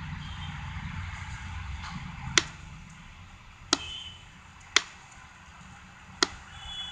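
Four sharp, separate clicks about a second apart, over a steady low background hum.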